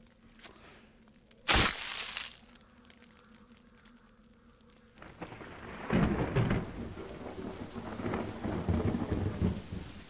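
Thunder: a sharp crack about a second and a half in that dies away quickly, then a long rolling rumble that builds about five seconds in.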